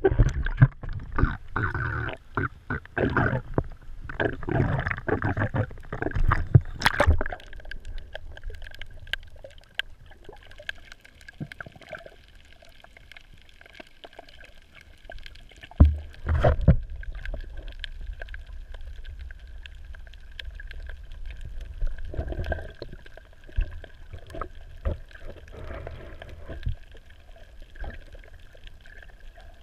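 Sea water splashing and gurgling around a submerged action camera for the first several seconds. It then settles into quieter muffled underwater sound with a steady high tone and a few knocks.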